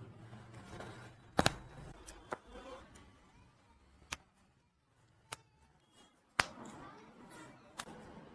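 Joints cracking under chiropractic manipulation: about seven short, sharp cracks spaced irregularly, two of them louder than the rest.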